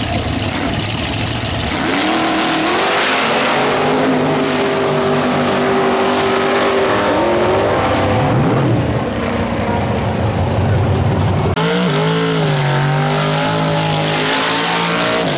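Drag-racing muscle car engines at full throttle. Two cars launch about two seconds in, rising in pitch as they pull away and dropping at the shifts. Then a Chevrolet Nova's engine is held at high revs during a burnout, spinning its rear tyres.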